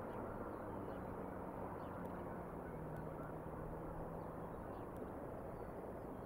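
Steady outdoor background rumble from the eagle nest cam microphone, with a faint low drone from about one to four and a half seconds in and a few faint high bird chirps.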